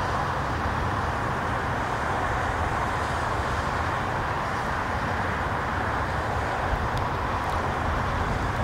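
Turbofan engines of a twin-engine widebody jet airliner on final approach, a steady noise with a low rumble underneath.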